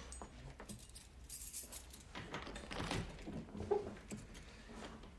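A bunch of keys jangling, with a key clicking and rattling in a door lock that it no longer fits: the lock has been changed.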